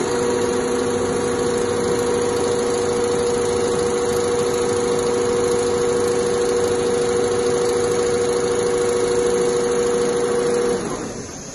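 Richpeace two-head CNC leather sewing machine stitching at a steady speed, a constant whine over the running mechanism; it stops near the end.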